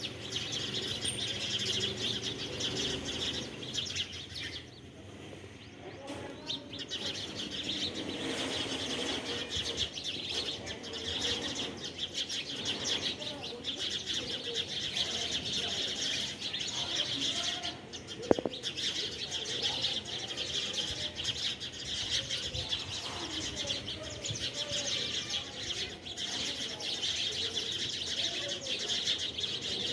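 Small birds chirping and twittering steadily in a dense chorus, which thins out briefly about five seconds in. A single sharp knock about eighteen seconds in.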